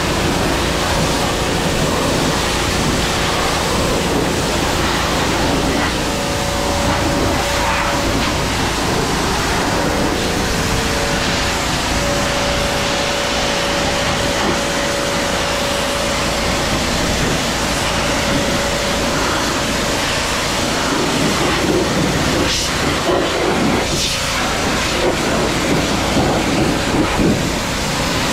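Pressure washer jet spraying a semi trailer's wheels and tires: a steady loud hiss of water, with a faint steady hum underneath. It gets louder and more uneven in the last several seconds.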